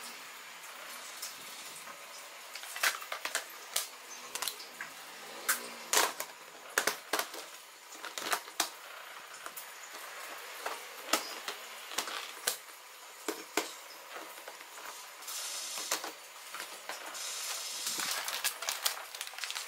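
Rice poured from its plastic sack into a clear plastic storage box, with plastic crackling and a string of sharp clicks and knocks. Near the end there is a steadier hiss of pouring grains.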